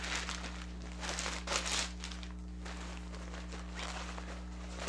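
Rustling of a silk bag being pulled out and handled, in short bursts, the loudest about a second in and another near the end, over a steady low hum.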